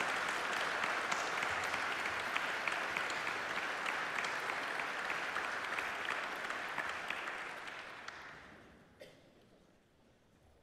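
Audience applauding in a concert hall, a dense patter of clapping that dies away about eight seconds in. A single sharp click follows just after, then the hall goes quiet.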